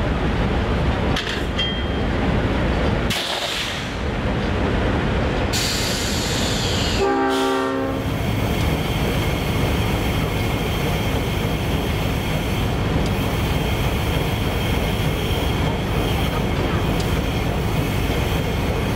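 Diesel locomotive idling loudly close by, a steady engine rumble. A train horn sounds one short blast about seven seconds in.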